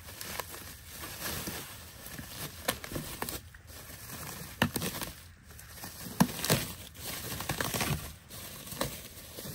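Bubble wrap being pulled off and crumpled by hand: a continuous crinkling with scattered sharp crackles.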